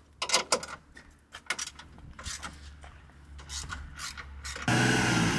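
Ratchet wrench clicking in quick, irregular runs as bolts are undone at a car's front bumper. About four and a half seconds in, this gives way abruptly to a louder, steady vehicle hum.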